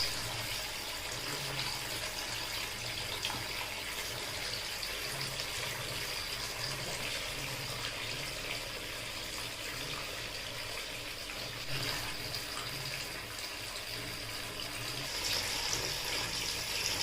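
Water running steadily over a small tabletop waterfall fountain, a continuous trickle and splash, with a faint low hum underneath.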